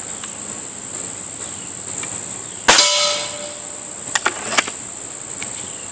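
A single shot from a Beeman RS2 .22 break-barrel air rifle, with the pellet clanging off a frying pan target, which rings briefly, a little under three seconds in. Two sharp clicks follow about a second and a half later. A steady high insect drone runs underneath.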